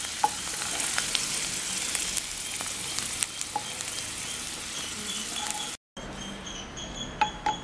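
Raisins sizzling in hot ghee in a nonstick kadai, with sharp ticks of a wooden spatula against the pan as they are scooped out. The sizzle cuts off suddenly nearly six seconds in, leaving a quieter stretch with a faint steady high whine and a few more ticks.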